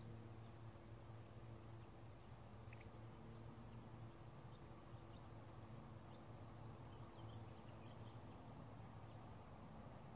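Near silence: faint pond-side ambience with a steady high insect trill and a faint low steady hum.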